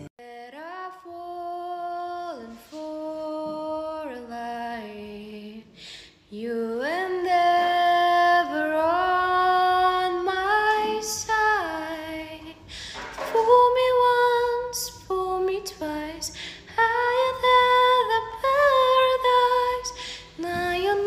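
A woman singing a slow melody with long held, sliding notes. The first six seconds are softer; after a short break she sings louder.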